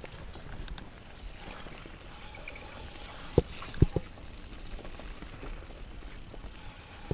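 Mountain bike riding down a rough dirt trail: a steady rumble of tyres and rattling bike, with three sharp knocks in quick succession about three and a half to four seconds in as the bike jolts over the rough ground.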